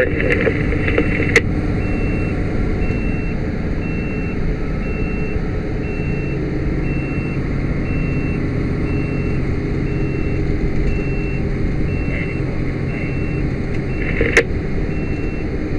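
Cabin of a 2007 Toyota Tundra pickup at highway speed: steady engine and road noise. A short, high electronic beep repeats about twice a second from about two seconds in, and there are two sharp clicks, one near the start and one near the end.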